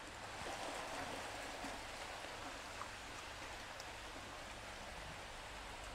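Water splashing and churning as a crowd of koi thrash at the surface of a tank to feed, with a steady rain-like patter. The splashing swells briefly about half a second in.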